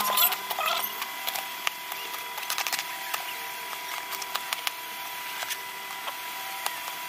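Kitchen knife chopping ginger on a plastic cutting board: scattered sharp taps of the blade on the board, with a quick run of chops about two and a half seconds in. A faint steady whine runs underneath.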